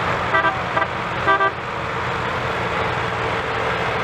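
Tractor diesel engines running under load in a tug-of-war pull, with a vehicle horn tooting a few short times in the first second and a half, the last toot slightly longer.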